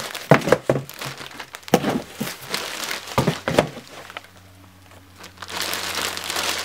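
Clear plastic bag crinkling as it is handled, with irregular sharp crackles for the first few seconds, a short lull about four seconds in, then steadier rustling near the end.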